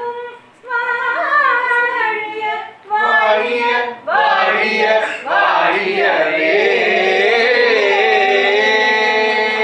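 Singing by several voices, a woman's voice prominent: short phrases with brief pauses, then from about five seconds in the voices sing long held notes together.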